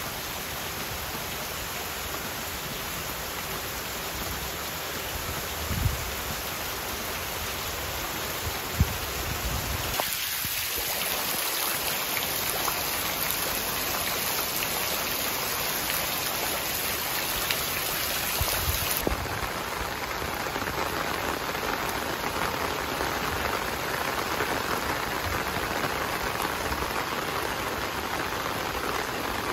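Heavy rain hissing steadily as it pours onto flooded roads and standing water, the hiss changing character abruptly twice. Two brief low thumps in the first third.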